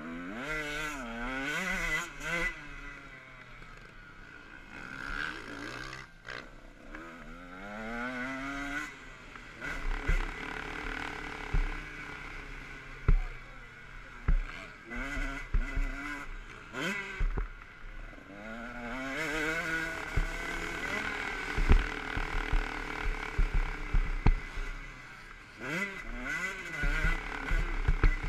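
Motocross bike engine revving up and dropping back again and again as the rider accelerates, shifts and rolls off around a dirt track, heard up close from on the bike. From about ten seconds in, many sharp knocks and clatters break in over the engine.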